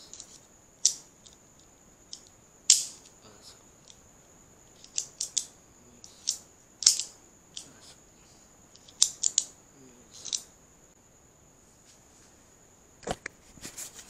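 Light metallic clicks and short scrapes, scattered irregularly, as a metal pin is worked into the metal housing of a homemade speargun trigger mechanism, over a steady high-pitched tone. Near the end comes a louder cluster of knocks and handling noise.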